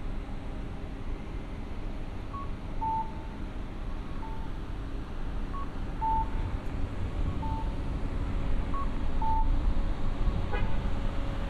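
Electronic pedestrian-crossing signal chirping: a short higher note falling to a longer lower one, repeating about every second and a half, over the low hum of road traffic that grows louder toward the end.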